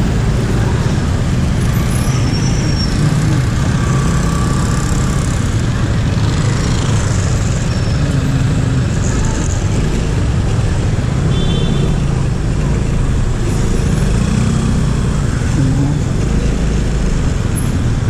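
Steady low rumble of road traffic heard from a motorcycle: the riding motorcycle's engine together with the scooters, motorcycles, cars and vans idling and creeping around it in congested city traffic.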